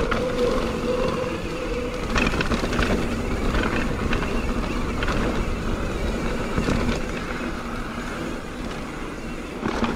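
Mountain bike rolling fast over a dirt singletrack: a steady rumble of tyres and air noise with scattered rattles and clatters from the bike over bumps.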